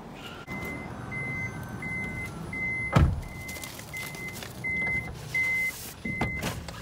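Minivan's power sliding side door running with its warning beeper: a steady high beep repeating about one and a half times a second. A heavy clunk about three seconds in and another near the end.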